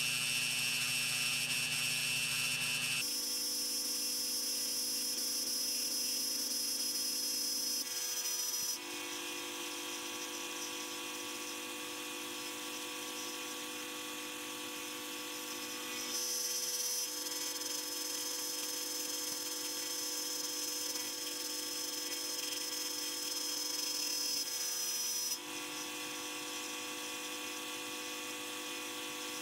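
CNC router milling a pocket in a wooden board: the router motor runs with a steady whine while the bit cuts. The pitch of the whine shifts abruptly four times as the cut goes on.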